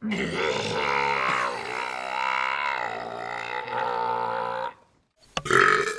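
A long, continuous human belch, burped on command: a low, pitched drone that wavers a little in pitch for about four and a half seconds and then stops. A brief, louder vocal sound follows near the end.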